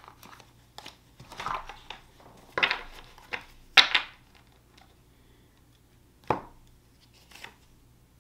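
Tarot cards being handled on a table: a run of short papery swishes and slaps, the loudest about four seconds in, then a few sparser ones.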